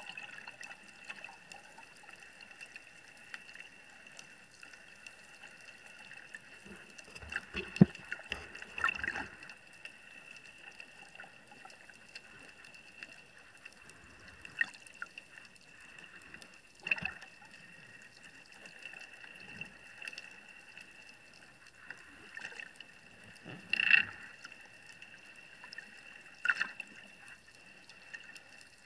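Underwater ambience as heard below the surface: muffled water noise over a steady high hum, broken by a few short, louder bursts of water movement, the strongest about eight, seventeen and twenty-four seconds in.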